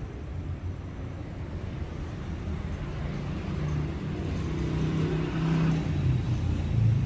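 Street traffic: a steady low rumble, with a car's engine and tyres growing louder from about halfway through as it drives past.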